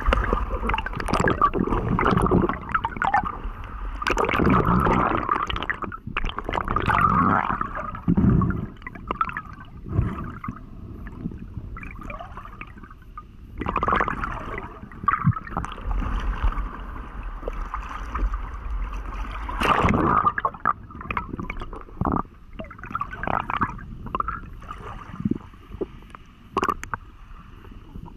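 Water gurgling and sloshing in uneven bursts, swelling and fading throughout.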